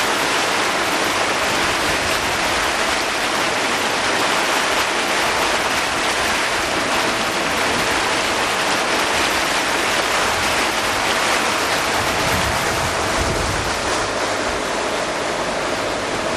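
Steady loud rushing of wind and water on a motorboat under way across choppy water.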